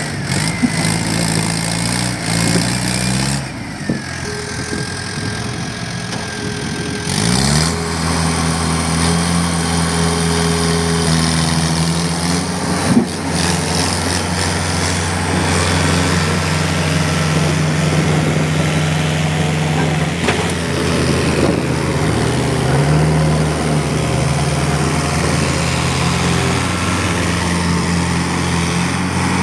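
Mahindra 555 DI tractor's diesel engine running hard while hauling a loaded trolley of mud, its pitch climbing sharply about seven seconds in and then holding steady, with a brief dip and rise again near the two-thirds mark. There is a single sharp knock near the middle.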